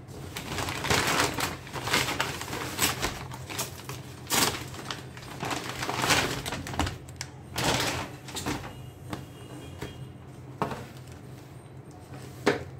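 Rustling and crinkling of a brown paper courier bag being handled, and a cardboard shoebox slid out of it and opened, in irregular bursts over a steady low hum. There is a sharp knock near the end.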